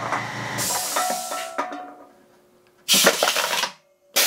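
Air-powered can crusher letting out its air: compressed air hisses out of the cylinder, then a short, loud blast about three seconds in blows the crushed can out of the chamber, and another hiss starts near the end.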